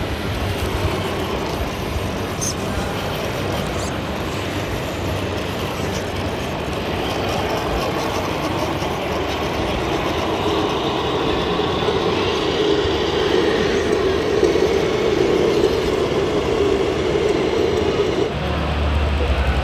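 Electric drive of an RC scale crawler, motor and gears whirring steadily under load as it climbs a dirt trail. The whir grows stronger in the second half and stops abruptly near the end. Murmur of a crowd sits underneath.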